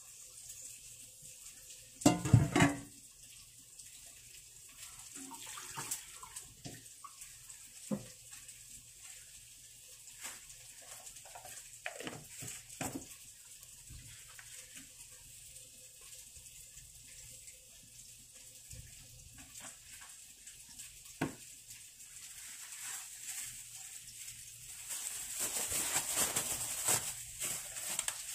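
Food-prep handling sounds on a kitchen counter: a loud knock about two seconds in, then scattered light clicks and taps of bowls and containers. Near the end comes a denser rustle of plastic as a disposable plastic glove is worked on.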